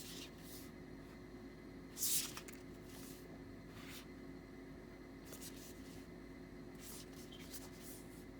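Oracle cards being handled and flipped through: a few brief soft swishes of card stock sliding, the loudest about two seconds in, over a steady low hum.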